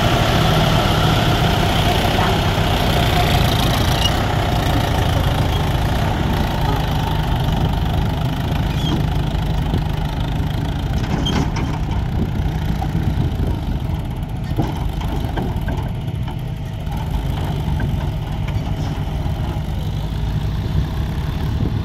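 Diesel tractor engines running steadily under load while pulling a trolley through deep sand. The engine note is higher-pitched and strained for the first few seconds, then settles to a lower, steady running note.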